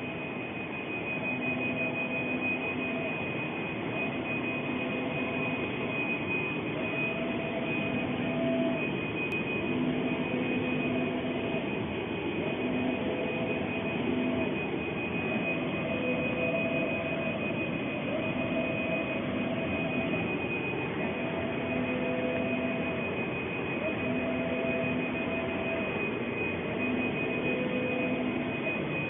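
UV flatbed printer printing: a steady machine whir with a constant high whine, and a motor hum that comes and goes about every two seconds as the print carriage passes back and forth over the bed.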